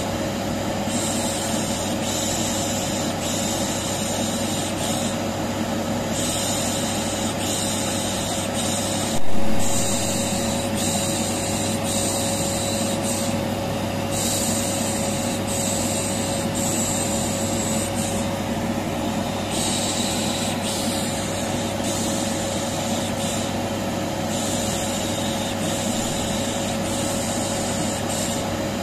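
Vacuum cleaner running steadily with a constant motor whine, overlaid with repeated 'pişşş' shushing hisses that come and go every second or two, used as white noise to calm a colicky baby. A single brief loud bump about nine seconds in.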